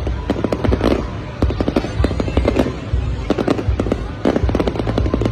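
Aerial fireworks display: many shells bursting in quick succession, several sharp bangs a second with crackle, over a continuous low rumble.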